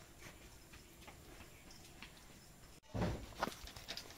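Metal spatula working a thick coconut-and-sugar mixture in an aluminium wok. Faint scraping at first, then a couple of louder knocks and scrapes against the pan near the end.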